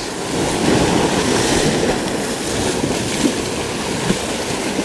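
Ocean surf washing against the shore, a steady rushing noise, with two small knocks near the end.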